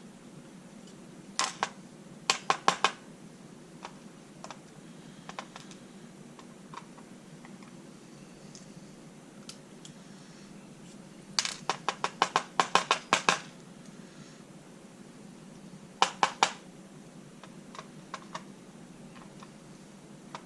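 Small metal lock parts being handled as a gutted lock's pins and springs are taken out and set down: clusters of sharp clicks and taps, with a longer rapid run of clicks about eleven to thirteen seconds in and scattered single ticks between.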